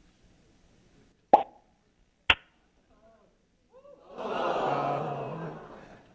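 Two sharp clicks about a second apart, then a swell of audience voices reacting for about two seconds, rising and fading.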